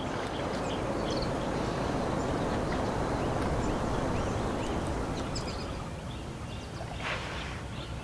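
Outdoor ambience: a steady rushing background with many short, high bird calls scattered through it, and a slightly louder call about seven seconds in.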